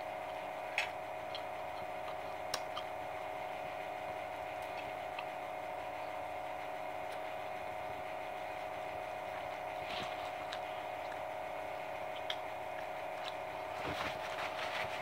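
Quiet eating sounds: a few soft clicks and smacks of chewing and of fingers picking fried chicken off the bone, over a steady hum.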